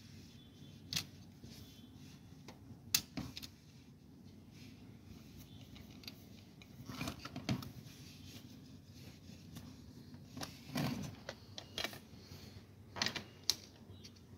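Scattered sharp clicks, taps and short rustles of the plastic gear and end parts of a Canon iR2202 copier's drum unit being handled and pressed by hand, over a faint steady hum.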